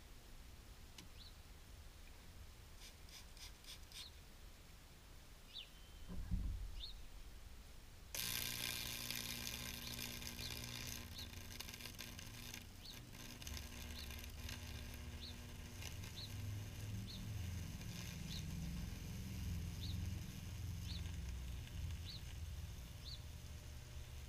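About eight seconds in, a microwave-oven transformer is switched on and its high voltage starts burning a Lichtenberg figure into the wooden board: a steady low mains hum with a hissing crackle of arcing and burning wood that runs on to the end. A low thump comes shortly before. A small bird chirps about once a second throughout.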